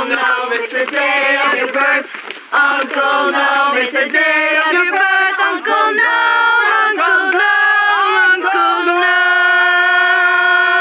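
A group of young voices chanting in unison, "Uncle Noam, it's the day of your birth! Uncle Noam!", repeated several times. Near the end the chant rises into one long held call.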